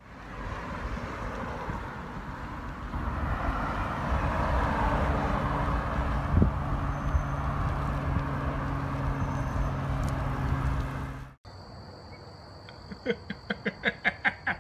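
Road traffic noise with a steady engine hum, which cuts off abruptly about eleven seconds in. A quieter stretch follows, with a steady high tone and a quick run of short high pulses near the end.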